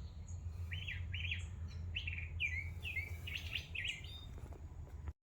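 A bird chirping, a quick run of short falling notes, over a low steady hum; everything cuts off just before the end.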